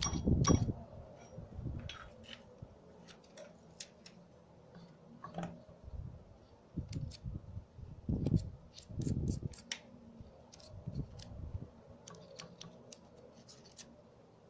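Metal parts and hand tools handled during work on a pneumatic grinder: scattered small metallic clicks, with a few dull knocks about six to ten seconds in.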